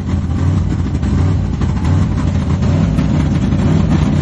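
Vehicle engine running steadily at low revs during a mud recovery.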